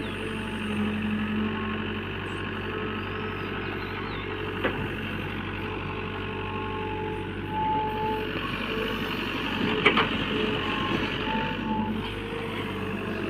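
Heavy diesel engine of a backhoe loader running steadily at a worksite, with two sharp knocks, about five and ten seconds in.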